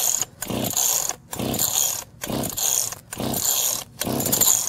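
ECHO chainsaw's recoil starter being pulled five times in quick succession, about one pull a second, each pull a rasping burst of cord and cranking engine. The engine does not catch. The saw is flooded, and it is being cranked with the choke pushed back in and fast idle set.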